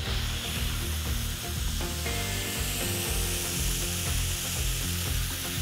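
Brussels-waffle batter sizzling as it is ladled onto the hot plates of a Domo Waffle Genius electric waffle iron, a steady hiss that starts as the first ladle lands. Background music with a steady bass line plays throughout.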